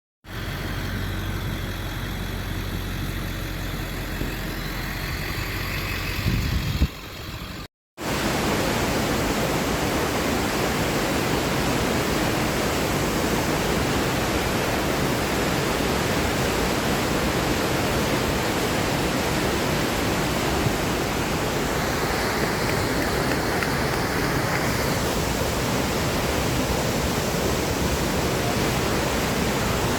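Steady roar of rushing water from a waterfall. Before a short break about eight seconds in the noise carries more low rumble; after it the roar is even and full.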